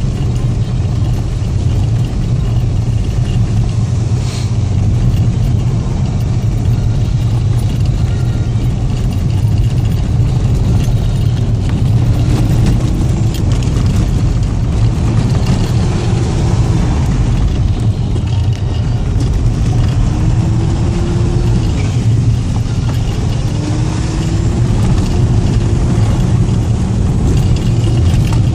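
Audi A6 2.5 TDI quattro's turbodiesel V6 running under way, a heavy, steady low rumble, with the engine note rising and falling several times in the second half.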